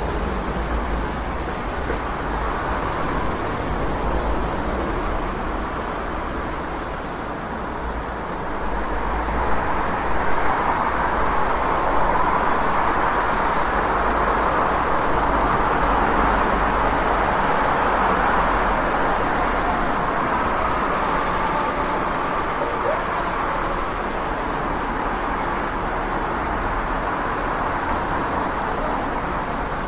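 City street traffic noise: a continuous wash of passing cars over a low rumble, swelling louder for about ten seconds in the middle and then easing back.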